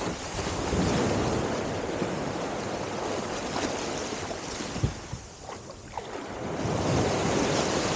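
Wind buffeting the microphone over sea water washing and sloshing, swelling and easing, with a couple of brief knocks about five and six seconds in.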